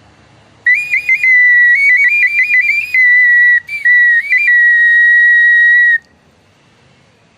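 Filimonovo clay folk whistle blown: a shrill whistle tone warbling quickly between two or three notes, then held on one long steady note that stops abruptly.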